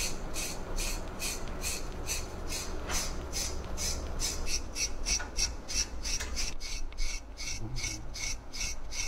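Equi-Groomer de-shedding blade raking through a dog's short coat in quick, even strokes, about three scrapes a second, pulling out loose undercoat.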